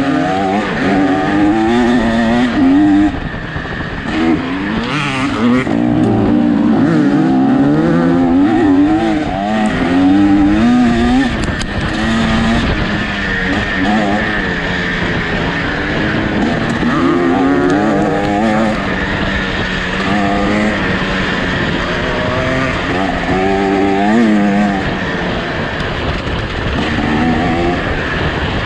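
KTM 300 XC-W single-cylinder two-stroke enduro engine, through an FMF Fatty expansion chamber and Powercore silencer, revving up and down continually as the bike is ridden hard off-road.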